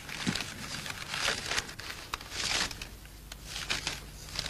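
Paper rustling and crinkling in several short, irregular bursts: a letter being taken out and unfolded.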